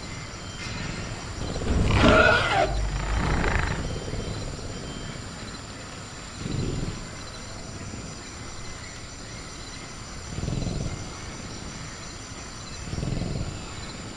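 Sound-designed velociraptor vocalizing: a loud screeching growl about two seconds in, a second growl right after, then three low growls spaced a few seconds apart. Steady crickets in the background.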